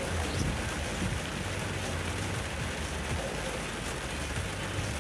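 Heavy rain drumming on a car's roof and windshield, heard from inside the cabin as a steady, even hiss, with a low rumble underneath.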